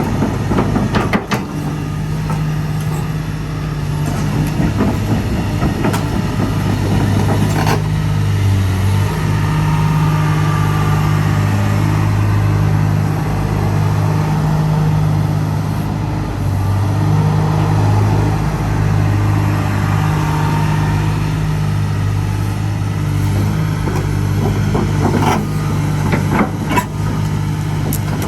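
Komatsu PC300LC-8 hydraulic excavator's diesel engine running steadily, its pitch shifting slightly now and then, with a few sharp knocks near the start, once in the middle and several near the end.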